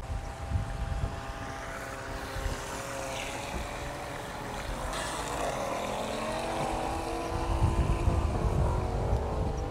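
Skytech H101 RC speedboat's battery-powered electric motor whining as it runs across the water. The whine is steady at first, then drops and climbs again about halfway through as the throttle eases and opens.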